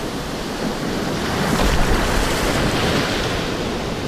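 Breaking surf rushing and foaming in the shallows around someone wading, with wind buffeting the microphone; a wave surges a little louder about a second and a half in.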